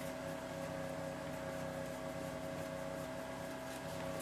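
A steady machine hum holding a few constant tones, with faint clicks and rustles of hands working a plastic pipe fitting.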